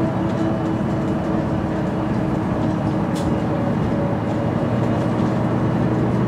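Mercedes-Benz O530 G Citaro articulated bus heard from inside the passenger cabin: its diesel engine and Voith automatic gearbox running with a steady drone. The lowest engine note grows stronger near the end, and there is one brief hiss about halfway through.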